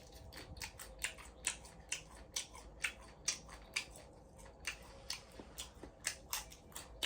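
Whole fried shrimp, shells and legs still on, crunched and chewed close to the microphone: a run of sharp, irregular crunches, about three a second.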